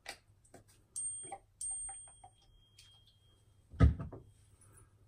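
Text-message notification alert: two thin, high electronic tones about half a second apart, the second held for about two seconds. Around them come small handling clicks and taps, and a louder thump about four seconds in.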